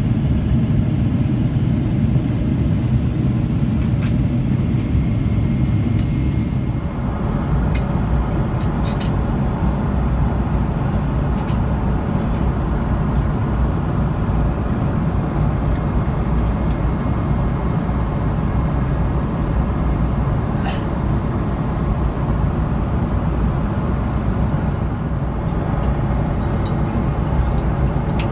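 Steady cabin roar of a Boeing 777-300ER airliner in flight, the noise of airflow and its GE90-115B engines. About seven seconds in the roar shifts to a brighter hiss, and a few light clicks come over it.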